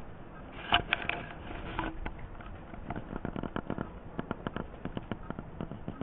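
Dense, irregular crackling clicks from a blizzard, heard through a Kodak EasyShare Sport C123 compact camera's built-in microphone. The loudest click comes just under a second in.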